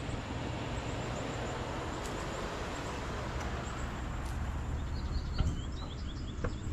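Steady low outdoor background noise with faint bird chirps, and a few light knocks near the end.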